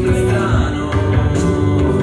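Background music: an Italian-language pop song with band backing.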